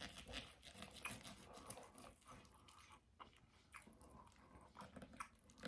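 Faint chewing and mouth sounds of a person eating a sour-cream-topped omelette, with scattered small wet clicks and a few slightly louder ones.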